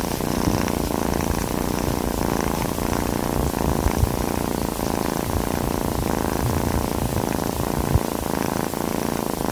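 A domestic cat purring steadily, with two brief thumps about four and eight seconds in.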